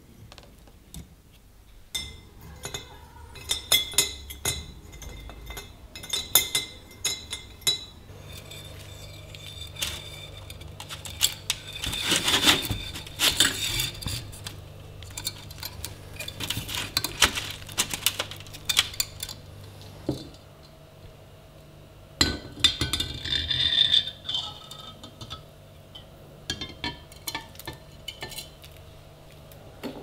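Metal parts of an antique Peugeot Frères G1 coffee grinder, hung on wire, clinking, knocking and scraping against each other and against metal as they are handled, in repeated clusters of sharp clinks. A low steady hum runs underneath from about a quarter of the way in.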